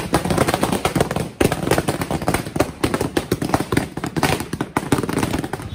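A string of firecrackers going off: rapid, crowded bangs with a brief break about a second and a half in.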